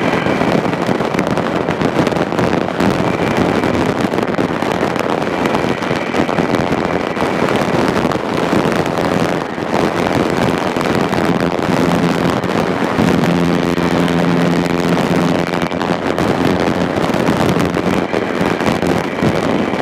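Thorp T-18's piston engine and propeller running under power through a loop, heard from the cockpit as a loud, dense rasp mixed with airflow noise. A steadier humming tone comes through for a few seconds past the middle, then fades back into the noise.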